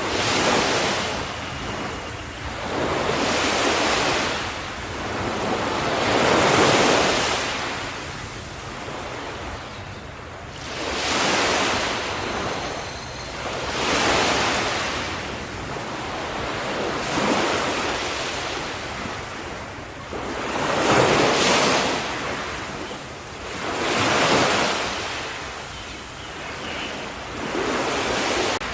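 Ocean waves breaking on the shore in slow, repeated surges, one swelling and washing back about every three seconds.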